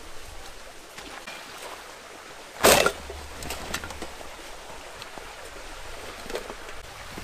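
A camouflage tarp ground sheet and backpack gear handled on dry leaf litter: light rustles and scuffs, with one loud, brief thump about two and a half seconds in.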